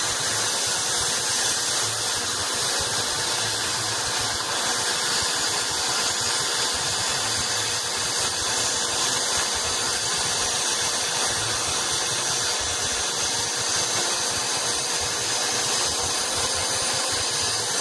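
A metal-cutting tool running steadily as it cuts circles out of steel plate, making a loud, even hiss with no break.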